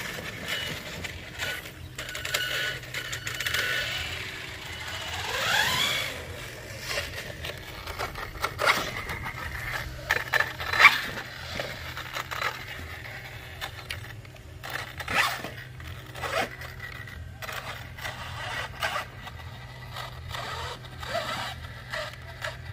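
Radio-controlled trail trucks crawling over rough ground: repeated scraping and crackling with scattered sharp clicks, and an electric motor whining up in pitch about five seconds in.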